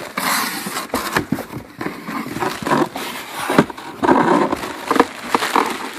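A cardboard box and its packing being handled and pulled open by hand: irregular rustling and scraping of cardboard and packing material, with scattered knocks and clicks.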